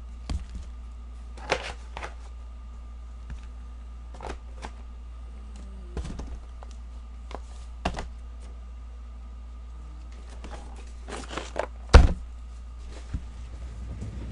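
Scattered knocks, taps and clicks of boxes and card holders being handled and set down on a table, the loudest a sharp thunk about 12 seconds in, over a steady low electrical hum.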